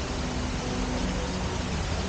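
Steady city ambience: fountain water splashing in a stone basin over a low hum of distant traffic.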